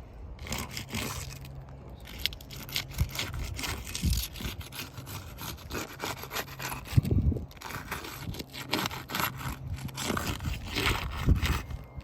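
Scraping and rubbing against asphalt roof shingles, with a few sharper knocks, as the roofer works loose the wind-damaged shingle.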